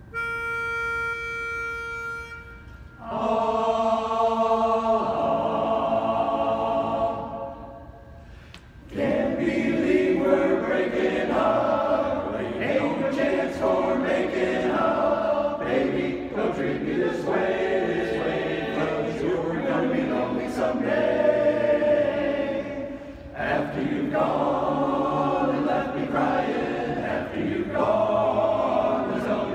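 A pitch pipe gives a single steady starting note. Then a men's barbershop chorus sings a cappella in close harmony: a long held chord, a short break, and the song carrying on.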